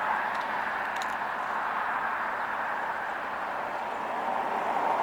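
Road traffic: the tyre hiss of a passing car fades away, and another vehicle starts to approach near the end.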